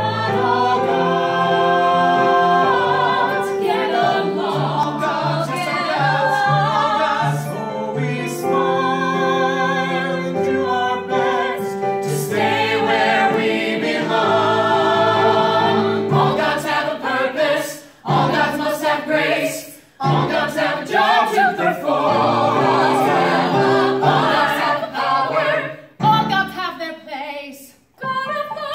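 Small musical-theatre cast singing an ensemble number in harmony, with several brief breaks between phrases in the second half.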